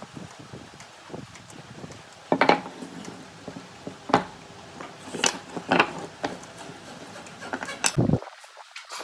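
Workshop handling sounds: a handful of separate sharp knocks and clatters of wood and tools being picked up and set down, spaced a second or so apart.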